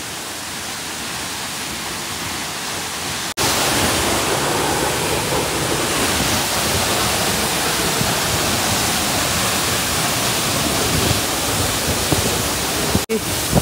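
Fast-flowing water from a monsoon-swollen stream, rushing steadily in full flow. The sound jumps louder and fuller about three seconds in.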